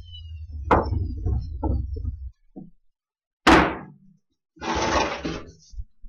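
Wooden knocks and thuds from a board being handled on a workbench: a few light knocks over a low hum that stops about two seconds in, one loud thud about halfway through, then a brief scraping sound and a last click.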